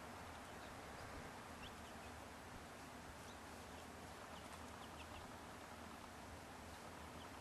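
American goldfinches chirping faintly: short, high chirps scattered throughout, over a steady background hiss and low rumble.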